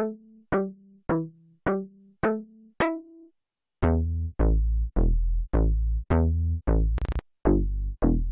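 IGNITO software synthesizer playing bass presets in a repeated pattern of short notes, about two a second, each starting with a sharp click and dying away quickly. After a short pause a little past halfway through, a heavier, deeper bass preset takes over, with a brief fluttering burst near the end.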